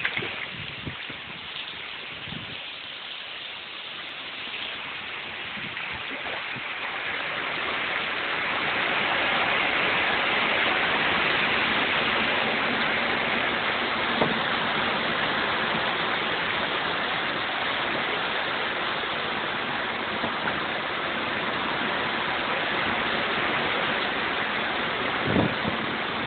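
Heavy rain pouring steadily, growing louder over the first several seconds and then holding, with a few handling knocks near the start and near the end.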